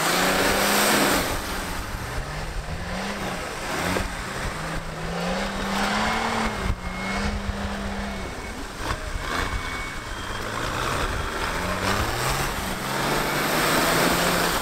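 Off-road 4x4 engine revving hard and easing off again and again, its pitch climbing and falling back several times, with a rushing noise throughout.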